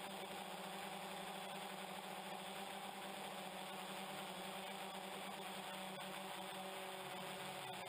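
DJI Phantom quadcopter's electric motors and propellers humming steadily in flight, heard through the GoPro mounted on the drone itself.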